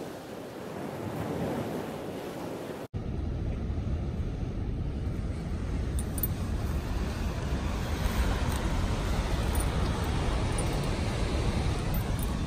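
Atlantic surf washing onto the rocky shore below a cliff, mixed with wind rumbling on the microphone. It is a steady rushing that becomes abruptly louder and heavier about three seconds in.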